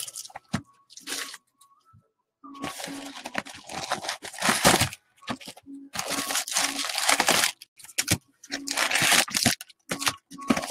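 Foil wrappers of 2017 Topps Update baseball card packs being torn open and crinkled, in several bursts of a second or two each.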